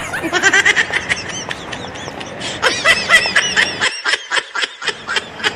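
High-pitched laughter in quick, repeated ha-ha pulses: one run near the start and a longer run from about halfway through.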